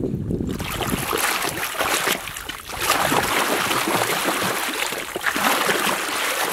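Water sloshing and splashing as a hand swishes and scrubs a muddy plastic toy train back and forth under the surface, with a brief lull about two and a half seconds in.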